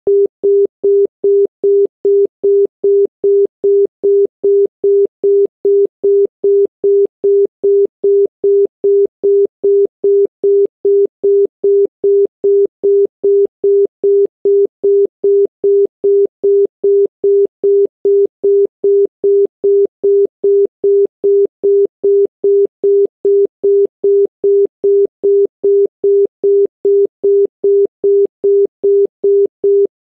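Telephone dial tone of the obsolete Philippine 'Dial C' type: a single 400 Hz tone beeping evenly, 0.2 s on and 0.2 s off, about two and a half beeps a second. It signals that the exchange is ready for the caller to dial.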